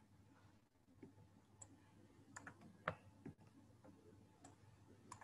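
Near silence with a few faint, short clicks, heard as the presentation slides are clicked through.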